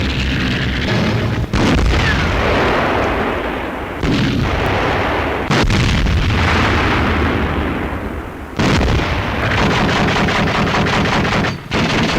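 Battle soundtrack of an old wartime newsreel: dense gunfire and explosions, loud throughout, in sections that start suddenly every few seconds. A stretch of rapid machine-gun-like firing comes from the middle to near the end.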